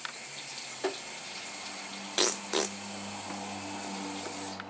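Kitchen tap running a steady stream of water, shut off near the end, with two sharp knocks about two seconds in.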